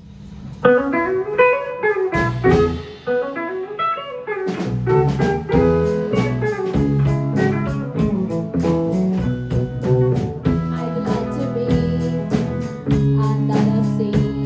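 Live rock band music: a guitar plays a picked melodic phrase on its own, then about four and a half seconds in the drums, bass and rest of the band come in with a steady beat.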